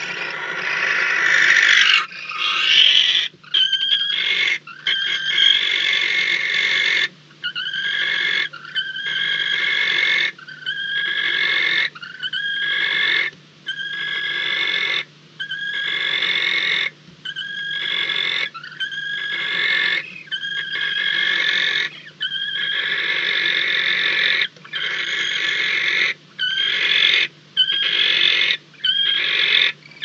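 Barn owls in the nestbox giving long rasping hiss calls, the snoring call barn owls use to beg for food, repeated over and over with short gaps between, each call lasting one to two seconds.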